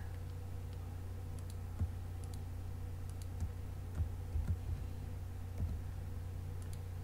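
Scattered computer keyboard and mouse clicks, with a few soft key thumps, over a steady low hum.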